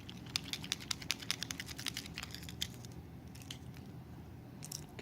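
Rapid light clicks and ticks of small plastic parts being handled, dense for about the first two and a half seconds, then only a few scattered clicks. This is a tiny plastic keychain fire starter being worked in the fingers.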